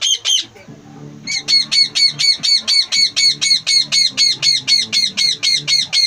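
Rose-ringed parakeet calling in a fast run of harsh squawks, about five a second. The calls break off briefly near the start and then resume.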